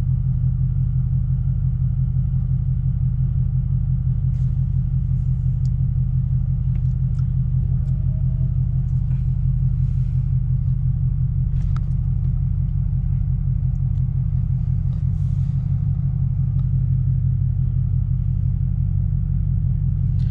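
BMW 750Li's 4.4-litre twin-turbo V8 idling steadily, heard from inside the cabin as an even low drone.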